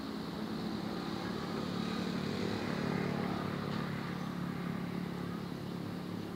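Diesel-electric locomotive engine running steadily with a low hum while the locomotive shunts slowly, growing a little louder two to three seconds in.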